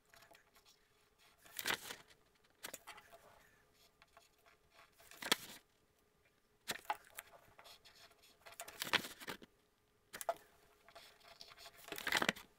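Pencil scratching on coloured card as it traces around a cardboard template, and the card sliding and rustling on a wooden table, in short scrapes a second or two apart.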